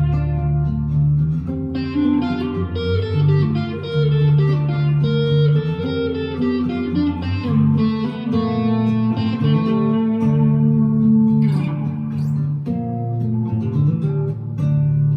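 Vintage V100 electric guitar through an amp's overdrive channel, playing a slow moody-rock passage of held chords and single notes, each ringing for a second or two.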